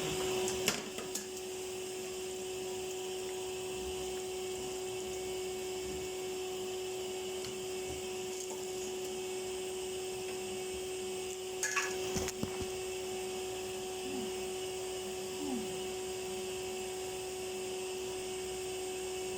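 Vacuum cleaner running with a steady whine while its pipe is blocked by something lodged inside. A few knocks and clicks about a second in and again around twelve seconds in.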